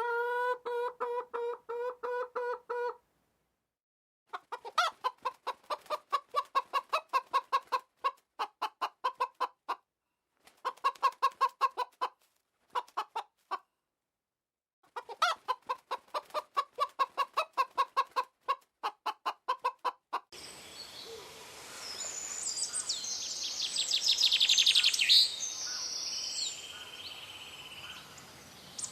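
Chicken clucking in quick runs of rapid, evenly spaced clucks broken by short pauses. About two-thirds of the way through it gives way to a steady outdoor hiss with high bird chirps.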